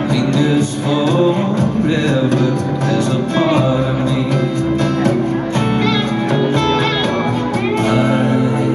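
Live band playing a slow song: acoustic guitar and electric guitar with singing, picked up loudly by a camera in the audience.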